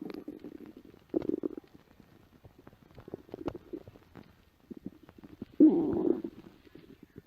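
Empty stomach growling and gurgling in irregular bursts with small clicks between them, the sign of hunger. The loudest and longest growl comes about five and a half seconds in.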